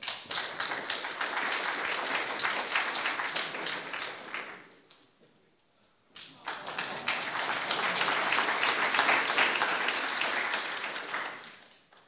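Audience applauding: two rounds of clapping, each about five seconds long, with a brief lull between.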